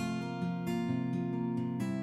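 Background music: strummed acoustic guitar playing a gentle chord progression.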